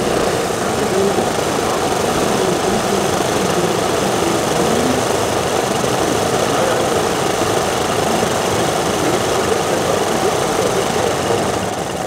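Several of the Dornier Do X model's 10 cc OS glow engines running together on the ground, a loud, dense, steady drone that dies away at the very end.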